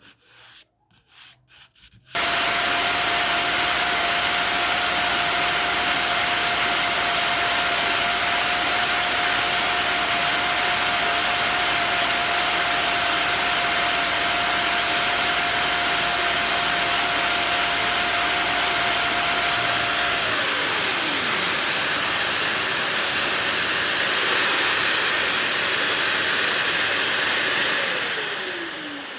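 Makita BO6030 150 mm random orbit sander switched on a couple of seconds in after a few handling clicks, then running with a steady whine over a loud hiss. About two-thirds through, the whine drops sharply in pitch while the hiss carries on. Near the end the sander is switched off and winds down with a falling pitch.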